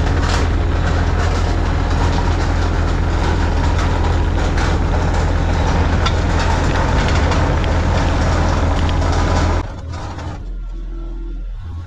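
Excavator engine running loud and steady under load, with continuous rattling and clanking as it drags a culvert. The sound drops off abruptly near the end to a quieter engine hum.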